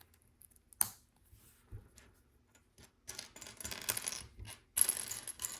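Loose LEGO plastic pieces clattering and clicking as a hand rummages through them to find a part. There is a single click about a second in, then steady rattling through the last half.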